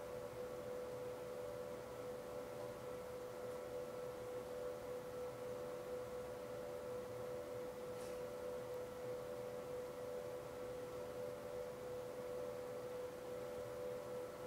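Steady hum: one unchanging tone with fainter higher tones above it, over a faint hiss.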